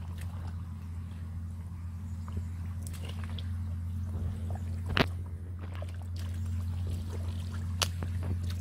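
Wet mud and shallow water squelching and sloshing as feet and hands work through a muddy pool, with small scattered clicks and a sharp click about five seconds in, over a steady low hum.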